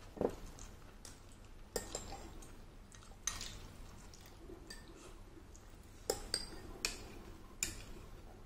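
Metal chopsticks clinking against a ceramic bowl while eating: about seven light, sharp clinks, a second or more apart at first and closer together near the end.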